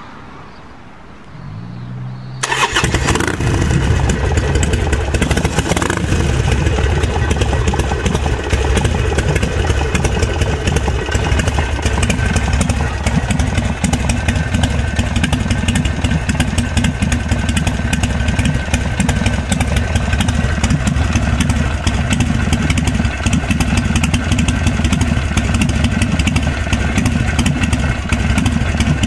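A 2006 Harley-Davidson Sportster 1200 Custom's air-cooled 1200 cc Evolution V-twin is cranked by its starter for about a second. It catches a little over two seconds in and then runs steadily at idle.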